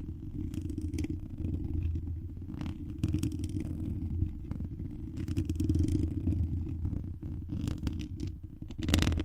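Cat purring, a low rumble that swells and fades about every two seconds, with scratchy rubbing on the microphone over it.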